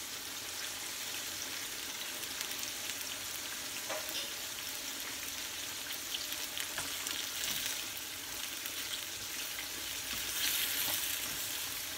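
Sliced onions sizzling in a stainless frying pan on a gas burner, a steady hiss with scattered light clicks; tongs stir them about two-thirds of the way through.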